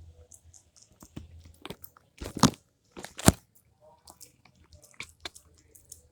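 A dog chewing and crunching on something hard, a string of irregular crunches with the two loudest about two and a half and three and a quarter seconds in.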